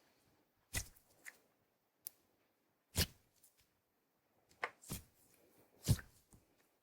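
Slime being squeezed and poked, making a string of sharp pops at irregular intervals.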